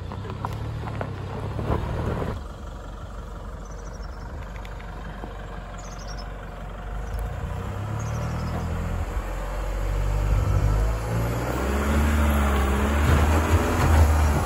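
Land Rover Defender's engine working at low speed off-road; after a change about two seconds in, the engine pulls harder and grows steadily louder as the vehicle climbs a steep rock step.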